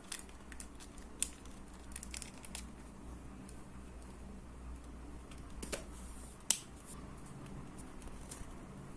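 Light clicks and taps of a small plastic action figure being handled and its parts worked, with two sharper clicks, one about a second in and one about six and a half seconds in, over a low steady hum.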